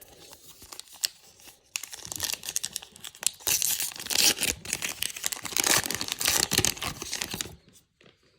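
A pack of baseball cards being torn open by hand: the wrapper crinkles and tears, louder from about two seconds in, and stops shortly before the end.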